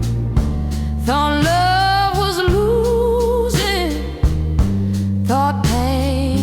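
Slow soul-blues ballad: sustained bass and chords under steady drum hits, with a lead melody line held in long notes with wide vibrato, entering about a second in and again near the end.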